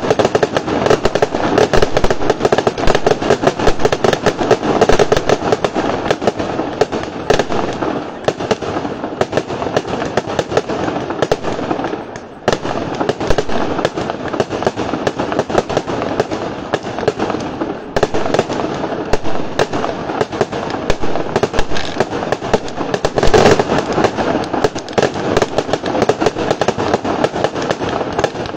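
Fireworks display: aerial shells bursting and ground-fired batteries going off in a dense, continuous barrage of bangs and crackling, easing briefly about twelve seconds in and again near eighteen seconds.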